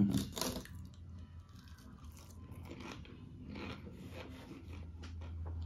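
A person biting into a fried fritter dipped in tomato chutney and chewing it, with faint irregular mouth and crunching sounds.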